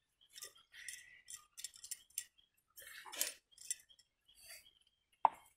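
Stainless steel bowls and utensils clinking and scraping lightly as food is handled, a run of irregular small clinks, with one sharper knock near the end.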